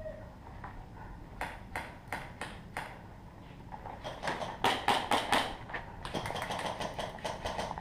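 Airsoft guns firing: a few single sharp cracks early, then quicker, louder strings of shots from about four seconds in.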